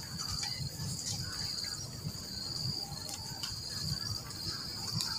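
A chorus of insects shrilling at one steady high pitch, with a low rumble underneath.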